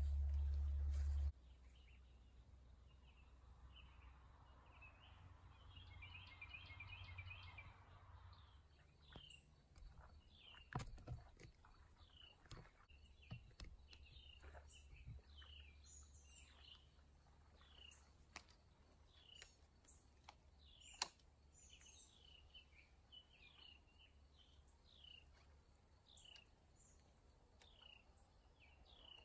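Faint birds chirping: short falling notes repeated every second or so, with a few soft clicks and knocks and one sharper tick. A low rumble stops abruptly about a second in.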